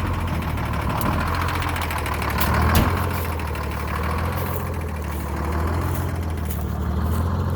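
Detroit Diesel 6-71 two-stroke inline-six diesel idling steadily, with a brief thump about three seconds in.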